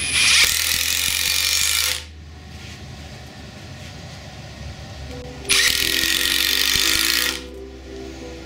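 Brushless Milwaukee impact driver with a DeWALT Flex Torq torsion bit driving long wood screws into a 2x4, twice. Each run of rapid impacting lasts just under two seconds and stops suddenly as the screw goes in.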